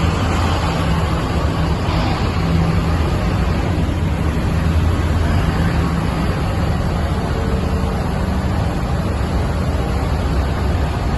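Harvest machinery running steadily: an even, loud engine drone with a dense mechanical rush over it.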